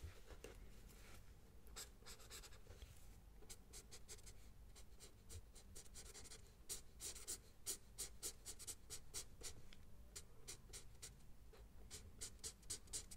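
Pencil drawing on paper: quick, light scratching strokes in clusters, busiest in the middle and again near the end.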